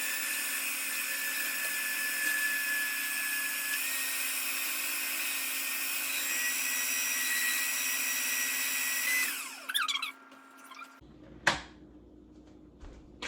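Small electric kitchen appliance motor running at a steady high whine for about nine seconds. Its pitch steps up slightly twice, then it spins down with a falling whine as it is switched off. A sharp click follows a moment later.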